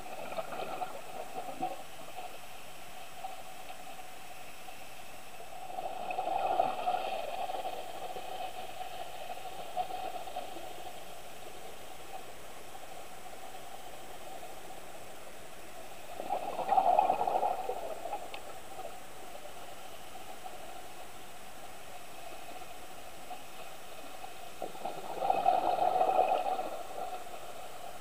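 Scuba diver's exhaled bubbles gurgling out of the regulator in bursts, roughly every nine to ten seconds, over a steady underwater hiss.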